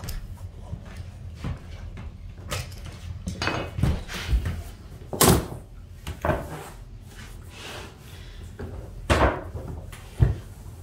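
Vinyl plank flooring being cut and handled: a utility knife scraping along a speed square as it scores a plank, then a run of sharp knocks and clacks as plank pieces are moved and set down on the particleboard subfloor, the loudest about halfway through.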